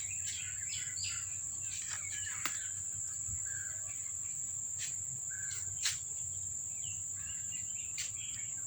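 Steady high-pitched chirring of crickets, with a few faint short chirps and several sharp clicks.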